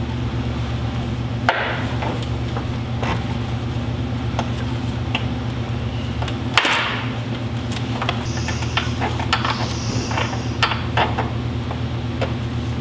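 Hand tools clanking and knocking on steel engine-mount brackets and bolts during an engine install: scattered sharp knocks and clinks, the loudest about six and a half seconds in, over a steady low hum.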